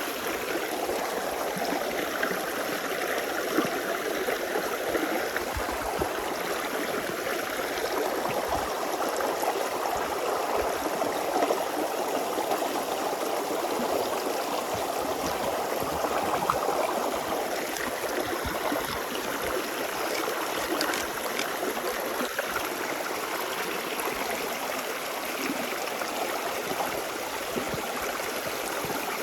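Forest stream flowing and babbling steadily over stones, with small splashes and gurgles scattered through it.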